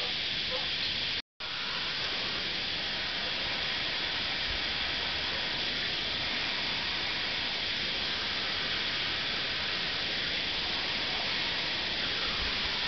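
Handheld gas blowtorch burning with a steady hiss as its flame heats a wire lead. The hiss breaks off for a moment about a second in.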